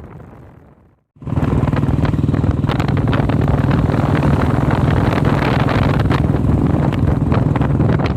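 A sound fades out to silence about a second in, then a cut brings in a vehicle engine running steadily at cruising speed, a low, even drone with wind on the microphone.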